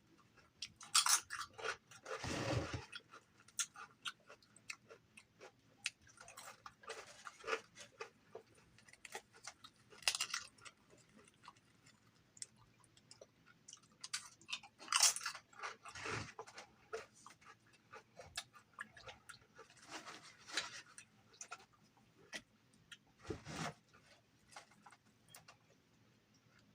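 A person chewing and biting crunchy food close to the microphone: irregular crunches and wet mouth sounds, with a few louder bites scattered through.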